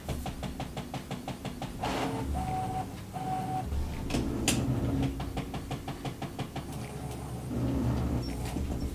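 Brother T520W ink tank printer's mechanism running through its first power-on initialisation: rapid, evenly spaced motor clicking, about nine a second, in two runs, with two short steady tones between them and a low hum underneath.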